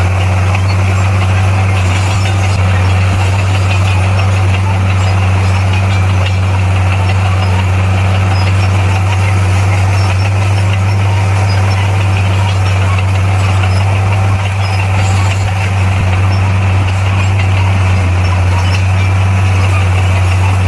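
Diesel engine of heavy earthmoving equipment running at a steady, even speed, with a strong low hum.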